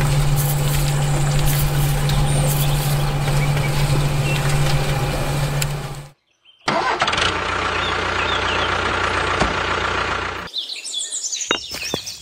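Small electric motor, likely the toy cement mixer truck's drum motor, running with a steady hum for about six seconds. After a brief break, birds chirp over a steady noise, and near the end come a few light clicks.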